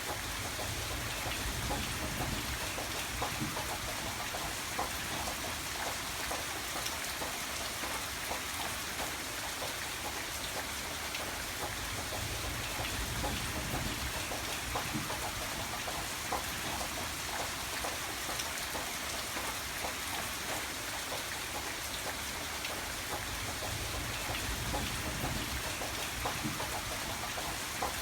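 Steady heavy rain, with many separate drops ticking on a surface over an even hiss. A low rumble swells up underneath three times, near the start, around the middle and near the end.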